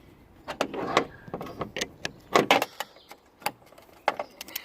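Hand tools being handled: a run of knocks, clicks and short scrapes, with the loudest bursts about half a second to one second in and again around two and a half seconds in.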